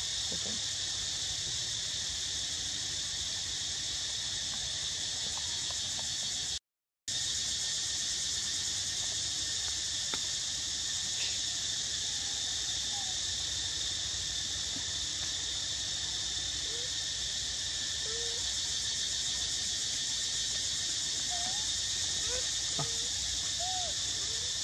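Steady high buzzing chorus of forest insects, with a few faint short curving calls near the end. The sound cuts out completely for a moment about seven seconds in.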